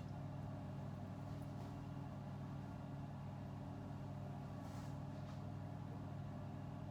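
A steady low machine hum made of several even tones, with a few faint short handling noises.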